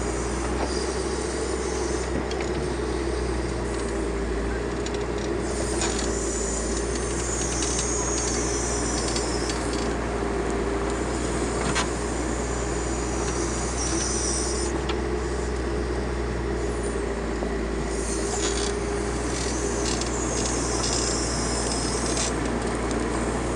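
Backhoe loader's diesel engine running steadily, with two spells of higher hissing and scraping, about six seconds in and again near eighteen seconds, and a few clicks.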